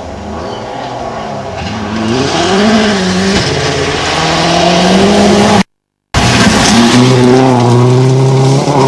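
Rally car engines at full throttle on a gravel stage. The first car comes closer, its pitch rising and dropping with the gear changes; after a short break in the sound just past halfway, a second car's engine holds a steady high note.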